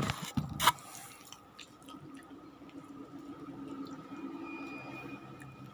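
Close-up eating sounds: a couple of sharp, wet mouth clicks in the first second, then quiet chewing.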